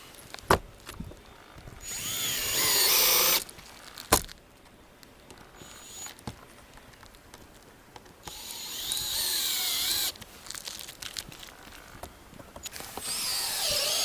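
Power drill driving screws through new plywood roof decking into the rafters: three runs of a second or two each, the motor whine wavering in pitch as each screw goes in. Two sharp knocks, one before the first run and one just after it.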